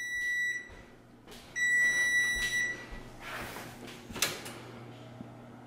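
Whirlpool wall oven's timer beeping to signal the bake time is up: two long, steady high-pitched electronic beeps, each about a second long, the second starting about a second and a half in, then it stops. A few soft knocks and a sharp click follow near the end.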